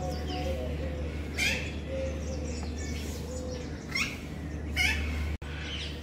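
Birds in a zoo aviary chirping: short, high calls that sweep down in pitch, about one a second, over a steady low hum.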